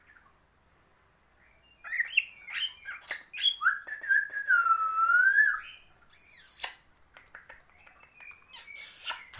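Gray cockatiel whistling its song: short whistled notes and chirps start about two seconds in, followed by one long whistle that dips and rises again in pitch, then a harsh squawky burst and softer chirps near the end.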